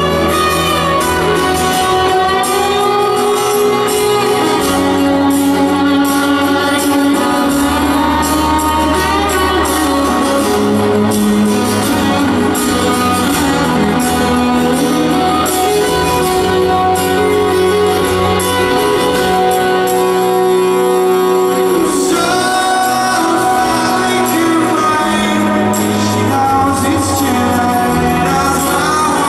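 Live rock band playing a song with a tambourine and sustained bass notes, with voices singing over it, heard through an audience recording.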